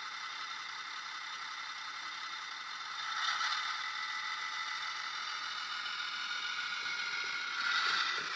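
A model diesel locomotive running on a model railway layout: a steady whir and rattle from its small electric motor and wheels on the track, growing a little louder about three seconds in and again near the end.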